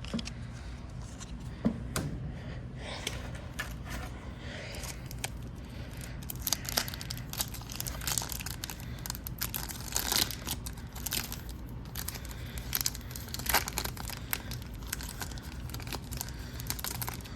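Plastic wrapper of a trading card pack being torn open and crinkled by hand, with irregular crackling through most of the stretch.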